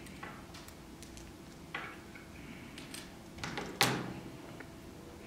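Light clicks and taps of small repair tools and phone parts being handled as the home button is taken off the smashed iPhone 4S screen, with one sharper click a little before four seconds in.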